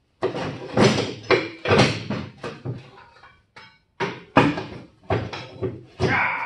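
Irregular metal clanks, knocks and scrapes as a pry bar levers an engine against its steel engine cradle and tube frame, working it loose.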